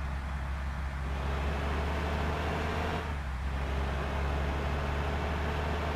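A bus's diesel engine running with a steady low drone. A rushing noise rises over it from about a second in and dips briefly about three seconds in.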